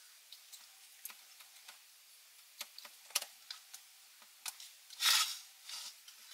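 Small clicks and taps of hands handling the plastic tape mechanism of a Philips N2234 cassette recorder, with a short, louder scrape or rustle about five seconds in.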